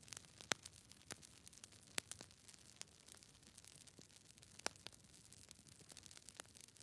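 Faint, irregular crackling clicks over a low hiss.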